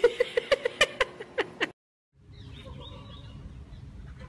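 A rapid run of wet smacking kisses against glass, about six a second, that stops abruptly. After a short gap comes a quieter outdoor background with faint high chirps.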